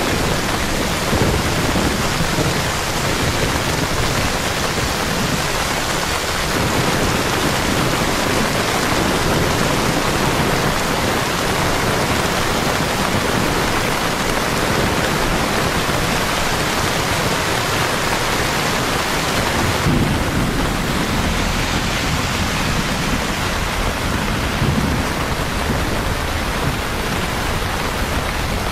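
Heavy rain falling steadily on pavement and streets, a dense, even hiss. About two-thirds of the way through, a deeper low rumble joins it.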